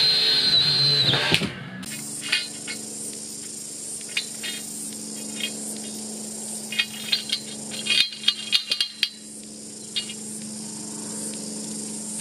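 A cordless screw gun whines as it drives a screw into ceiling plasterboard. After a cut near two seconds in, metal scaffold tubes and fittings clink and clank as the scaffolding is put together, in a cluster of sharp knocks a few seconds before the end. A steady high insect drone runs behind them.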